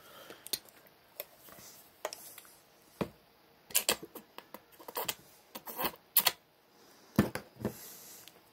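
Handling noise: an irregular run of sharp clicks and light taps, several close together in the middle and the loudest two near the end.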